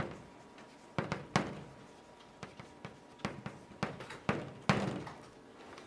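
Chalk on a blackboard as characters are written: a string of short, irregular taps with faint scratching between the strokes.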